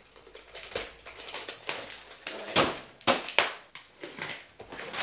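Gift-wrapping paper being handled: irregular crinkling and rustling with sharp crackles, loudest about two and a half to three and a half seconds in.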